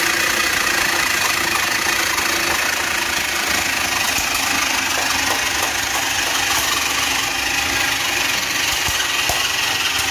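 Electric meat grinder running steadily, grinding chicken breast, over the constant hum of a ship's machinery.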